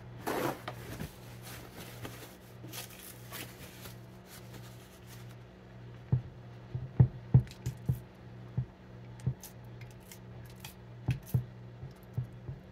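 Hands handling washed seitan dough and a paper towel on a wooden cutting board: a short paper rustle about half a second in, then from about halfway a run of sharp taps and clicks as the dough is pulled and pressed against the board. A steady low hum lies underneath.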